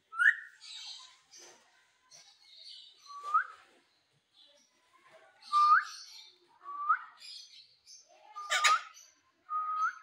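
Ringneck parakeet giving a series of six short whistles that each sweep upward at the end, with soft scratchy chatter between them. The loudest whistle, about two-thirds of the way through, comes with a harsh squawk.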